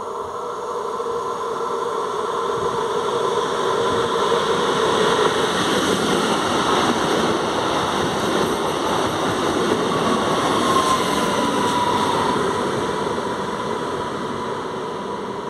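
Newag Impuls 31WE electric multiple unit pulling in past the platform. A rumble of wheels on rail swells as it passes close and then fades as it draws away, with an electric whine that drops slightly in pitch as it slows.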